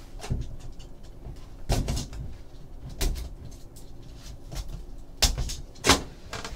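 Utility knife cutting through the tape seal of a small cardboard trading-card box, with scraping and a series of sharp knocks and taps as the box and knife are handled against the table. The loudest two knocks come about five and six seconds in.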